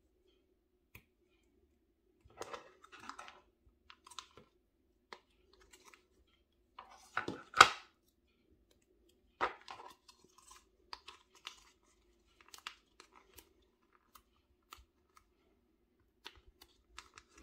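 Scattered small crisp crunches and clicks, with a cluster of louder crunches a little past the middle, over a faint steady hum.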